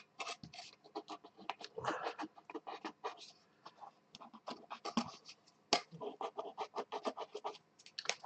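Fingertip rubbing leftover bits of old Mylar adhesive and silicone off an Atari 1200XL keyboard circuit board: quick, irregular scratchy strokes, several a second.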